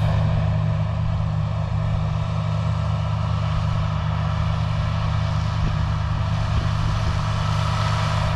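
Tractor engine running at a steady speed: an even, low drone with no change in pitch.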